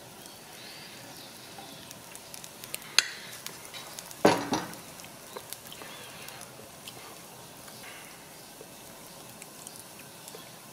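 Cassava-starch batter rounds frying in oil in a hot skillet, a faint steady sizzle. A metal spoon clicks a few times against the pan, with two sharp knocks about three and four seconds in, the second the loudest.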